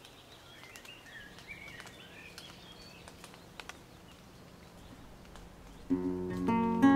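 Faint outdoor ambience with a few short bird chirps, then about six seconds in an acoustic guitar starts up loudly, strumming chords as background music.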